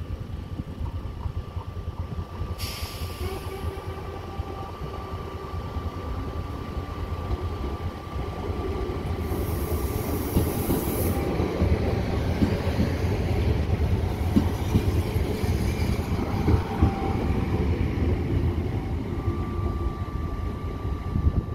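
Trenitalia Minuetto electric regional train pulling out and running past close by. The rumble of its wheels and running gear grows louder about a third of the way in and stays strong as it draws away. A thin steady high whine runs through the first half, with short bursts of high hiss.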